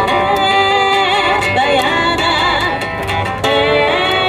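Music: a song with a sung vocal line over instruments, playing loudly and steadily.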